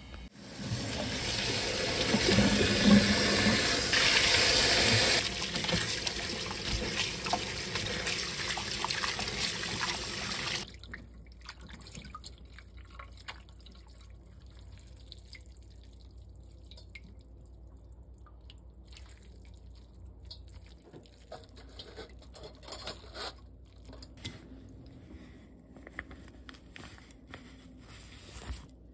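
Kitchen tap running hard into a stainless-steel bowl in a sink, water splashing over rinsed noodles, shut off suddenly about ten seconds in. After that, faint wet handling sounds and small clicks as the cooked noodles are squeezed out by hand.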